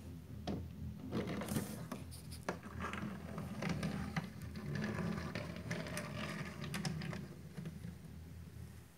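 Small die-cast toy vehicles being handled and rolled across a floor: scattered clicks and scrapes of plastic and metal.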